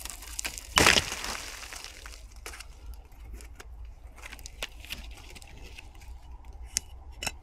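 A dry dead branch cracking with one sharp snap about a second in, followed by scattered light cracks and rustles of twigs and dry leaves.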